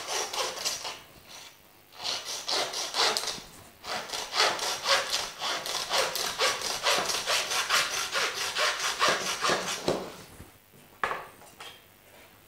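Butcher's hand bone saw cutting across a ram's rib bones in quick, even back-and-forth strokes, with a short pause about a second in and stopping about ten seconds in. A single sharp knock follows near the end.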